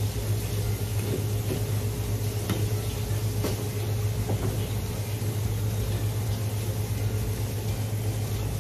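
Steady low machine hum, with a few faint knife taps on a plastic cutting board as small fish are cut open.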